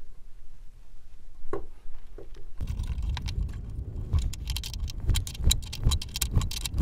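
Adjustable wrench clicking and clinking on the steel nuts of a bolt as a coarse-threaded insert nut is turned into a wooden block, with the block knocking and shifting on the bench. A few light clicks at first, then a busy run of quick metal clicks and knocks from about two and a half seconds in.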